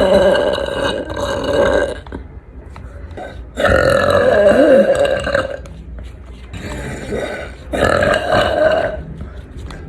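A woman belching loudly: three long, drawn-out burps, each held at a steady low pitch for one to two seconds, with a shorter, quieter one between the second and third.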